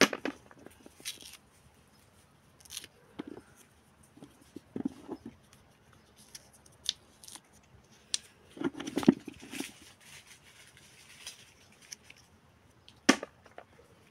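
Fresh green almond hulls being split and peeled off by hand, with soft tearing and scattered clicks and knocks as almonds and hulls drop into a plastic basin. There is a sharper click just before the end.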